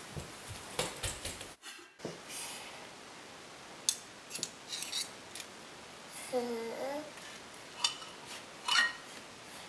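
Metal spoons clinking and scraping against a glass mixing bowl and a baking sheet as oatmeal cookie dough is scooped out and dropped, with a few sharp clinks spread through, the loudest about four and nine seconds in.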